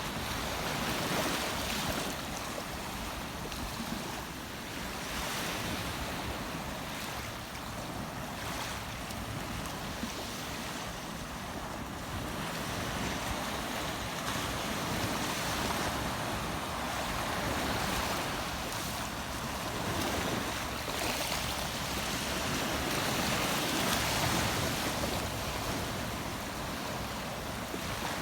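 Rushing water of a river, a steady rush that swells and eases every few seconds, with some wind on the microphone.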